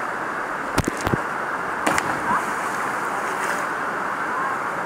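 Mountain river whitewater rushing steadily over rapids and boulders, with a few brief sharp knocks about a second in and again near two seconds.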